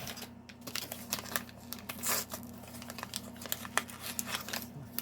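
Small plastic blind-bag wrappers of toy figures being crinkled and torn open by hand, with many short clicks and rustles and a louder rustle about two seconds in.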